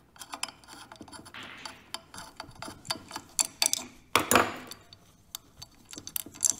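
Small irregular metal clicks and taps from a socket turning out the bolts of the oil pump pickup tube on a Honda CBX 1000 engine case, with a louder scraping rustle about four seconds in.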